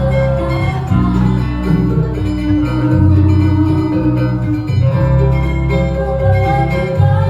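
Instrumental music led by guitar, with sustained notes over a bass line that changes every second or so.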